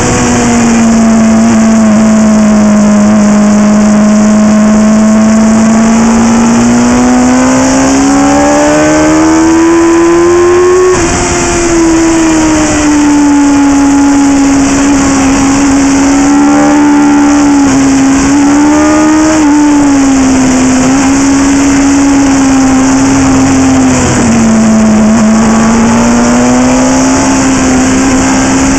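Motorcycle engine at racing speed heard from a camera mounted on the bike, loud and continuous with a steady rush of wind. Its pitch climbs slowly for several seconds, drops suddenly about eleven seconds in at a gear change, then rises and falls with the throttle through the corners.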